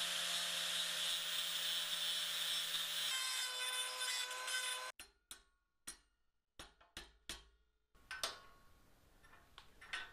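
Angle grinder running against the steel of a shrinker-stretcher jaw assembly, a steady grinding with a motor hum, which cuts off suddenly about five seconds in. After that, a few light metal clicks and knocks from parts being handled.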